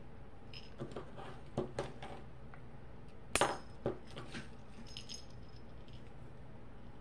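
Light metal clicks and clinks of a split key ring and small keychain hardware being worked by hand. The sharpest clink comes about three and a half seconds in, with faint tinkles after it.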